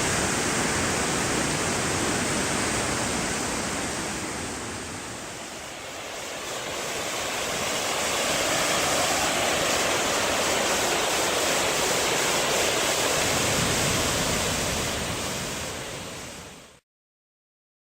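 Steady rushing roar of a waterfall on Brasstown Creek, easing briefly and swelling again, then fading and cutting off to silence near the end.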